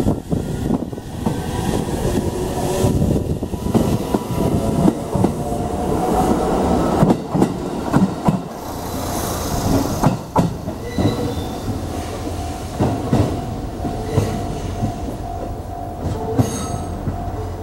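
JR Central 313 series electric train pulling away and passing close by: its motors whine up in pitch as it accelerates, and its wheels clack over the rail joints as the cars go past.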